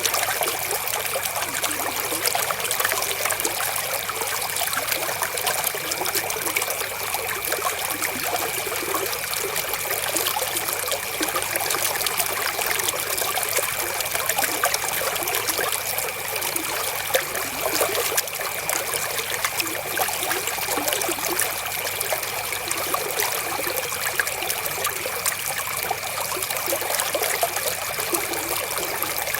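Flowing river water, a steady, even trickle.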